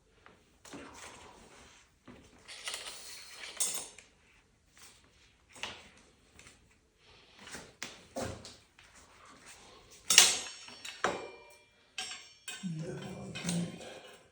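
Metal bicycle hub parts and tools clinking and clattering by hand, with a sharp ringing metallic clank about ten seconds in.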